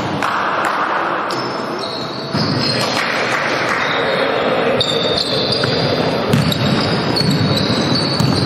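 Basketball game in a hall: a ball bouncing on the court floor and many short, high sneaker squeaks as players run, with the hall's echo.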